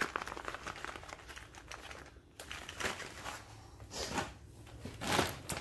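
Plastic product packaging crinkling and rustling as packaged items are handled and set down, with scattered light taps and clicks and a couple of louder rustles near the end.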